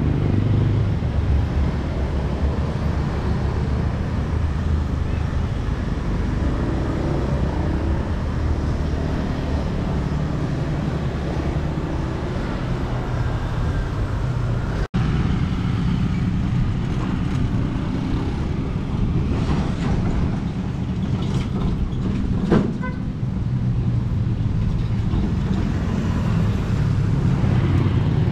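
Road traffic, mostly small motorcycles, passing by with a steady engine rumble, broken by a brief dropout about halfway and a short sharp knock a little later.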